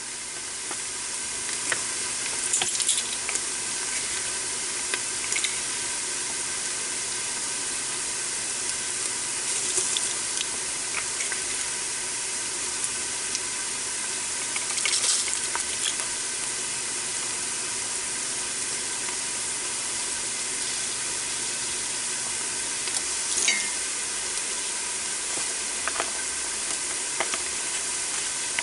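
Onions and minced garlic sizzling steadily in hot oil in an Instant Pot on its sauté setting, with a few brief clinks and scrapes of a utensil stirring them. The sizzle builds over the first couple of seconds.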